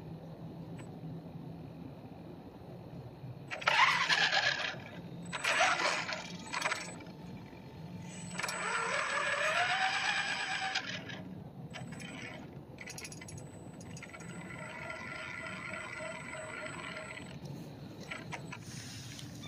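Electric drive motor and gears of a radio-controlled Tonka toy tow truck whining in short bursts as it drives on asphalt. Around the middle the whine rises in pitch as the truck speeds up, and later it holds one steady pitch for a few seconds.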